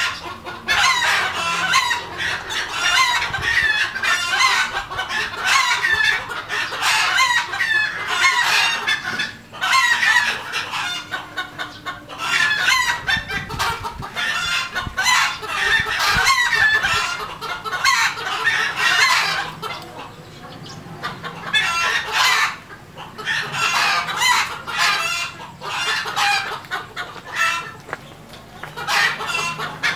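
A flock of red junglefowl clucking and calling over one another without pause, with roosters crowing now and then.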